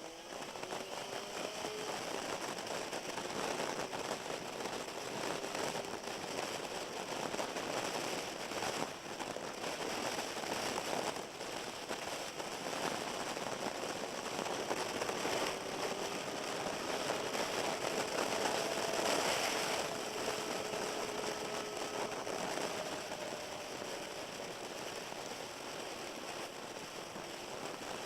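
Riding a sportbike on a wet road: steady wind noise with crackling on the microphone and tyre hiss. Underneath, a faint inline-four engine note rises and falls.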